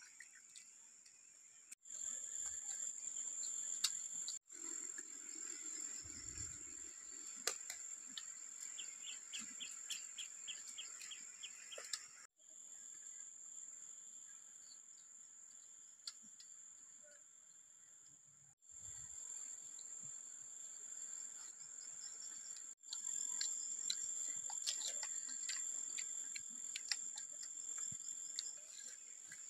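Steady high-pitched insect chorus, cut off abruptly and restarting several times. Scattered faint clicks run through it, and about nine seconds in a brief run of quick, evenly spaced chirps lasts a few seconds.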